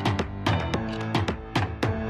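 Background music: an instrumental track with a steady beat of about four hits a second over sustained pitched notes.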